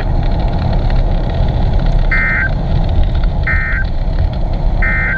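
Three short bursts of EAS digital data tones, about 1.4 seconds apart: the end-of-message signal closing a NOAA Weather Radio warning. They sound over a steady hiss and rumble.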